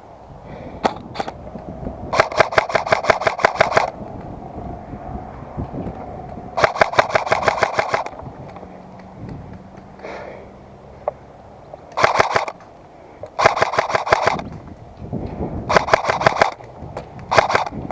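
Airsoft rifle firing on full auto in six bursts of rapid, evenly spaced shots, the longest burst near the start lasting almost two seconds and the shortest near the end.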